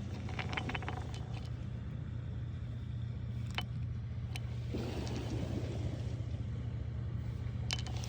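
Small stones clicking against one another in a quick cluster, then a few single clicks and a short rustle, over a steady low rumble.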